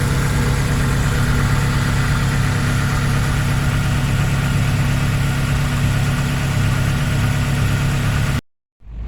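Nissan Serena C23 engine idling steadily, with the rough running noise the mechanic traces to a worn, loose timing-chain damper. It cuts off suddenly near the end.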